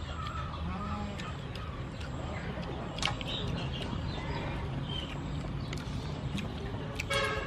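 Outdoor background with a steady low hum, scattered light clicks and a few short chirps, and a brief pitched call near the end.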